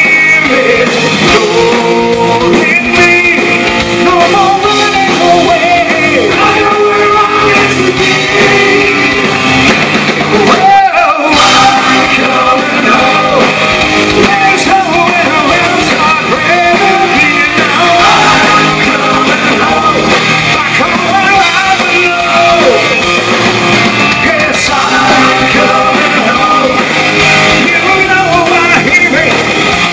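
Live hard rock band playing loudly: electric guitar, bass guitar and drums, with a male lead singer singing.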